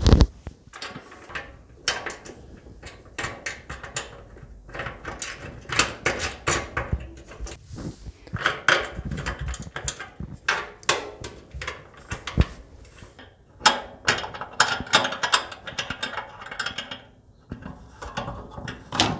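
Steel bolt and nut being tightened by hand tools to fasten a leg onto a Traeger Pro 575 pellet grill. Irregular metallic clicks, rattles and scrapes of tool, washers and bolt come in uneven clusters.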